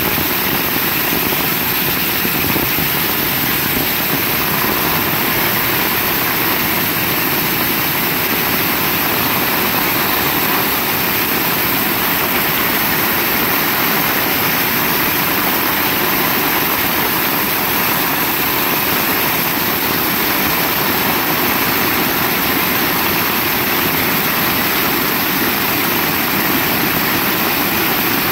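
Heavy rain falling in a steady downpour, an even hiss with no thunder or sudden sounds.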